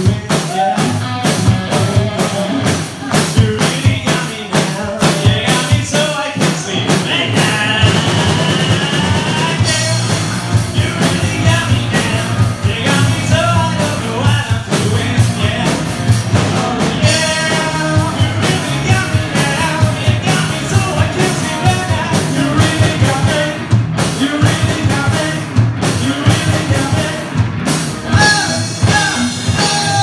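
Rock band playing live: a male singer over drum kit, electric guitar and bass guitar, loud and driving. The whole band drops out for an instant three times, about two seconds apart, near the end.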